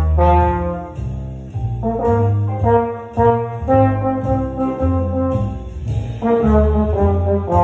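Trombone playing a solo line in phrases of held and shorter notes, the slide shifting between notes. Behind it runs a faint, steady ticking beat like a backing track's cymbal.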